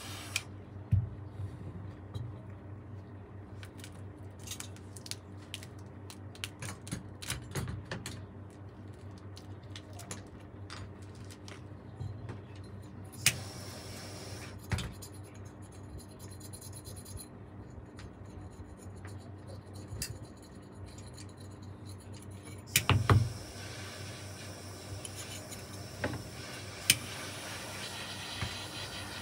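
Scattered small clicks, taps and scrapes of metal saxophone parts and tools being handled during repair work, over a steady low hum. A short burst of sharper knocks comes about 23 seconds in, after which a steady hiss sets in.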